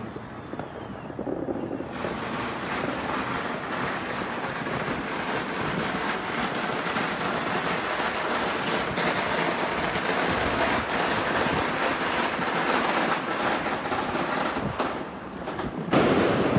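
Fireworks going off in a dense, continuous crackle that starts about two seconds in. The crackle thins out near the end, and then one louder bang comes just before the close.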